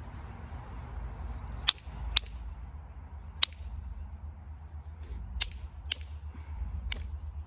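Six sharp, ringing clicks of limestone knocking against stone at uneven intervals, over a low steady rumble.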